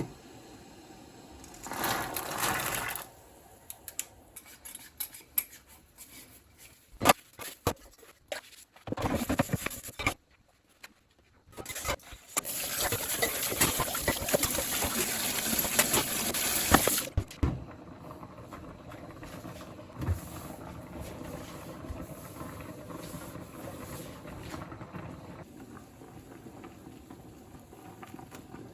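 Kitchen work sounds: scattered clicks and knocks, with a tap running for about five seconds in the middle, then a softer steady rush.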